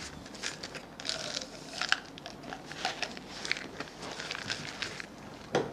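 Plastic supplement packaging being handled, crinkling and clicking in an irregular run of small crackles and taps, the sharpest about two seconds in.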